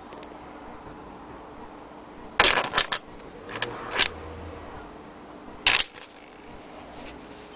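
Sharp mechanical clicks and clacks from handling an antique Willcox & Gibbs sewing machine: a quick cluster of several about two and a half seconds in, two more around four seconds, and a final loud one near six seconds.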